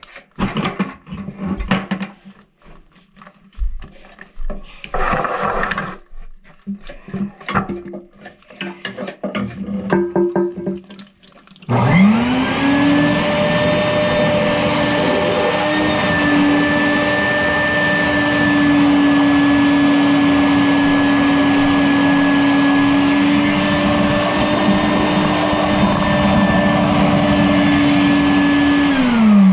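Scattered clatter and handling sounds, then a wet/dry vacuum is switched on about twelve seconds in: its motor spins up and runs steadily with a whine, pulling out water that a slightly leaking shut-off valve keeps letting into the toilet. Right at the end it is switched off and the whine starts to fall.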